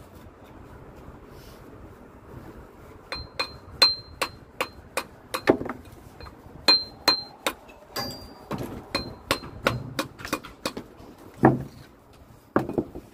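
A steel masonry tool striking a brick again and again to trim it to fit a tight gap: a run of sharp taps, about three a second, many with a high metallic ring. The taps start about three seconds in, after a quiet start.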